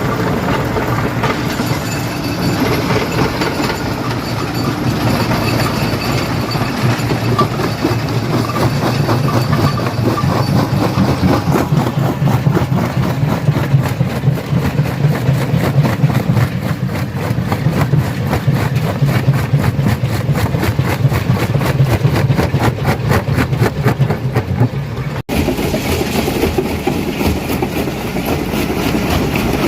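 Stone crusher running and crushing rock: a heavy, steady machine hum under a fast, even clatter of strokes. The sound breaks off for an instant about 25 seconds in and then carries on.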